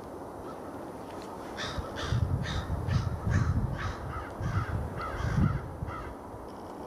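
A bird, crow-like, calling in a quick series of about nine calls over some four seconds, starting about a second and a half in. Under it runs the steady rumble of a four-engine Airbus A340 airliner on approach.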